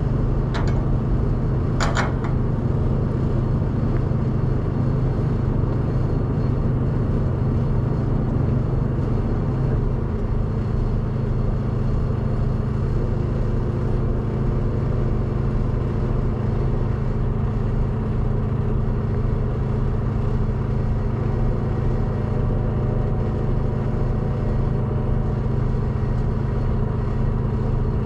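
Semi truck's diesel engine idling with a steady low hum, and two short sharp clinks about half a second and two seconds in.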